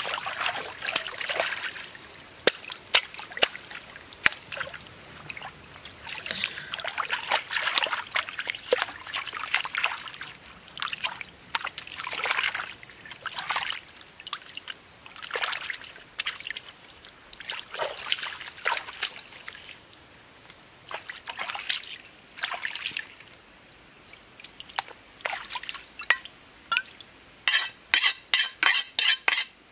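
Shallow stream water splashing and sloshing in irregular bursts as hands work a live eel in it, over a light trickle. Near the end comes a quick run of sharp, evenly repeated scraping strokes.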